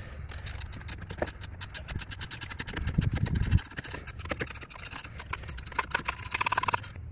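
Hand ratchet clicking rapidly as it runs a bolt down on the oil catch can's mounting bracket, stopping abruptly near the end. A low rumbling knock comes about three seconds in.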